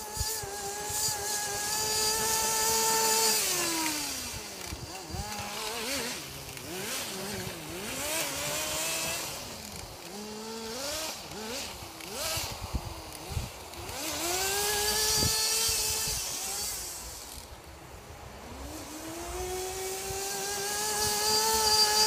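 Kyosho Blizzard 1/12 RC snow tractor's small two-stroke nitro engine revving as it drives. It holds high revs for a few seconds, falls away into a series of short throttle blips, then climbs and falls twice more. It is running well on a good tune.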